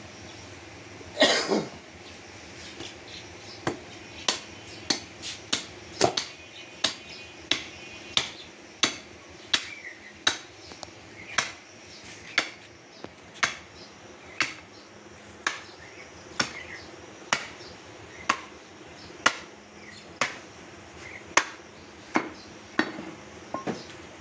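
Butcher's cleaver chopping bone-in beef ribs on a round wooden chopping block: sharp, regular chops a little more than once a second, with one heavier knock about a second in.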